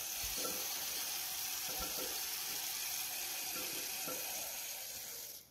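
Hand-operated suction gun drawing leftover coolant and air out of a tractor engine block's water passage through a thin tube: a steady watery hiss that cuts off sharply near the end.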